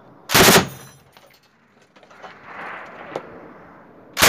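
A tripod-mounted 7.62 mm medium machine gun firing twice: two short, loud reports about four seconds apart, the second near the end.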